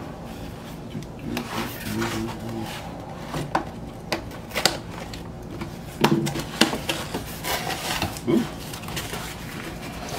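Corrugated cardboard mailer being handled and its flaps pulled and folded open: irregular scraping and rubbing with several sharp clicks, the loudest a little past the middle.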